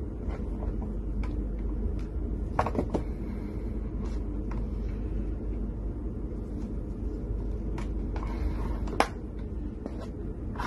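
A few light clicks and taps of small objects being handled on a wooden desk, the sharpest one about nine seconds in, over a steady low hum.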